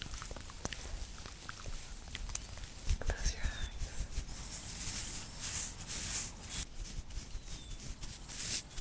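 Close-miked ASMR makeup handling sounds: small clicks and taps at first, then a run of short rustling swishes, with a couple of faint bird chirps from an open window.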